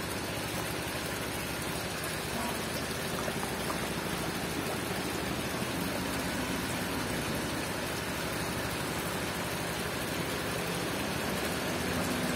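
Water in a tarpaulin koi pond splashing and trickling steadily, its surface churned by a crowd of koi.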